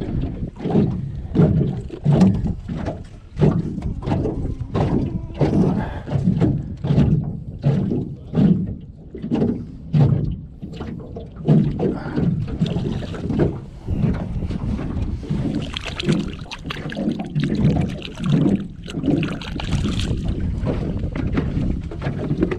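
Small waves slapping against the hull of a flat-bottom boat: an irregular run of low thumps, about one or two a second.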